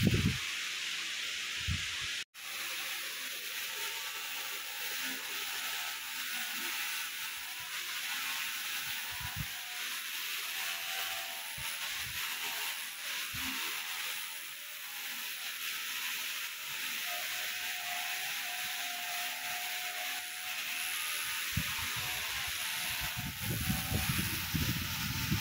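A steady hiss throughout. In the last few seconds, the scratchy rubbing of a cordless hair trimmer cutting short hair close to the scalp grows louder.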